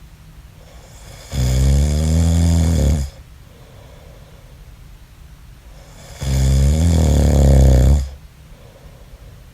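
A man snoring in his sleep: two long, loud snores, each just under two seconds, about five seconds apart.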